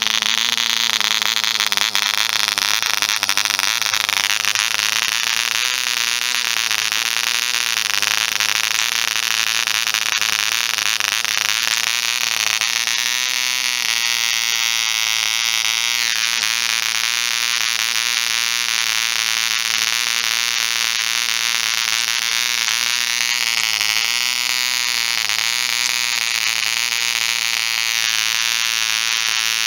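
Half-size replica ED Bee Mk 1 0.47 cc two-stroke model diesel engine running at speed and driving its propeller: a loud, steady high-pitched buzz. Its pitch shifts up and down several times as the revs change.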